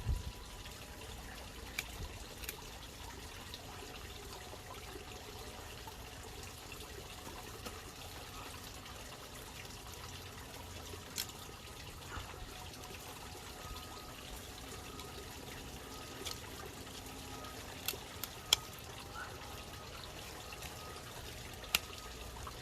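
Garden pond water bubbling and trickling steadily, with a few sharp clicks now and then, the loudest two about 18 seconds in and one near the end.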